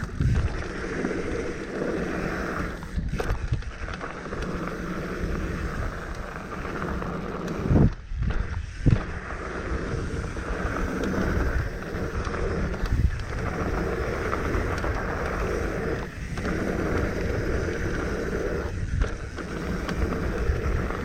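Mountain bike riding down a dirt bike-park trail: a steady rush of wind on the microphone and tyre noise, with two sharp thumps about eight and nine seconds in.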